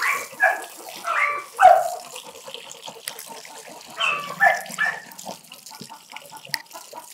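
Water running from a garden hose, spraying and splashing onto a Labrador's coat and the wet concrete floor. Several short voice-like calls sound over it in the first two seconds and again around four to five seconds in.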